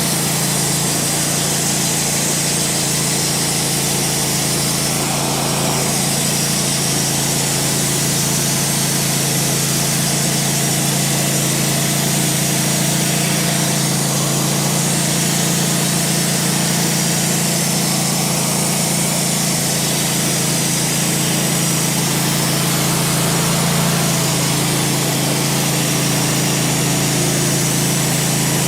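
Wood-Mizer LT15 portable band sawmill running steadily: its engine makes a constant low drone under a dense high-pitched hiss, with no real change in pitch or level.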